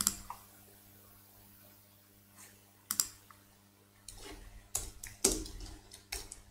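Typing on a computer keyboard: a couple of isolated clicks, then a short run of keystrokes from about four seconds in.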